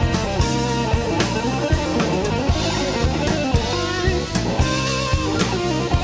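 Live band playing an instrumental passage: electric guitar lead with bending notes over a steady drum kit beat and bass.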